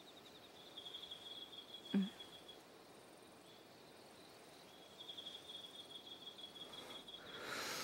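Crickets chirping in quick, high, pulsing trills, in two stretches of a couple of seconds each, with a short soft sound about two seconds in.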